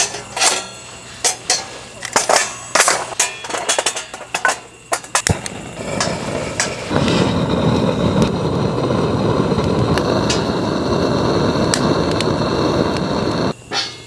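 Steel panels of a flat-pack fire pit clinking and clanking as they are fitted together. After a sharp click about five seconds in, a canister gas torch's flame hisses steadily for about six seconds while lighting kindling, then cuts off just before the end.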